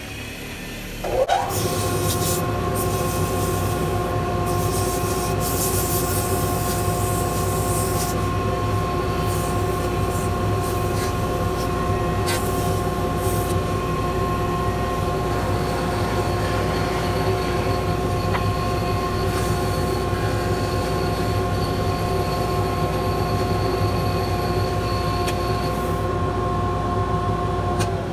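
A mini wood lathe's motor spins up about a second in, then runs steadily with a high whine. The edge of a spalted maple bangle is worked on the spinning lathe, adding intermittent hissing over the first dozen seconds. The motor begins winding down at the very end.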